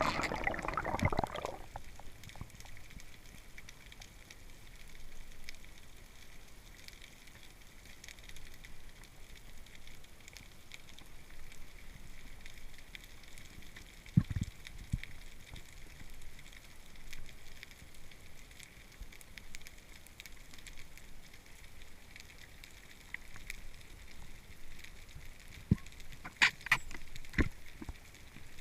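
Underwater ambience picked up through a camera housing: a steady crackling hiss. A burst of bubbling dies away in the first second, a dull knock comes about halfway, and a few sharp clicks and knocks come near the end.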